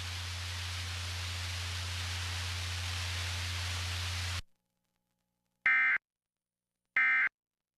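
Steady hiss of broadcast static with a low hum that cuts off abruptly about four and a half seconds in. After a short silence come two short buzzing digital data bursts about a second apart: the Emergency Alert System end-of-message code that closes the test.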